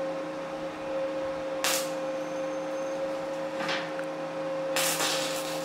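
Stick (MMA) arc welding with a 2.6 mm electrode at 100 amps: short bursts of arc hiss and crackle, the last one about five seconds in running on, over a steady electrical hum.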